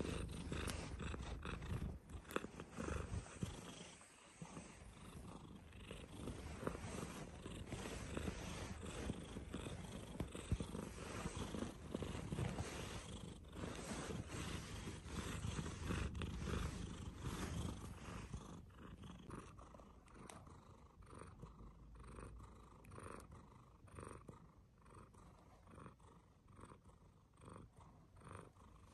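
Silver tabby American Shorthair cat purring close to the microphone, a steady low rumble that grows quieter about two-thirds of the way through.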